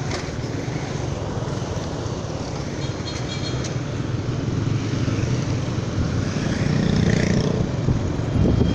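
Motorcycle engine running steadily while riding along a street, heard from on the bike with road and wind noise. It grows a little louder near the end.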